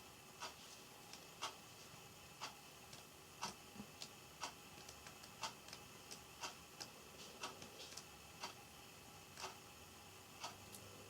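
A clock ticking about once a second, with fainter irregular clicks between the ticks.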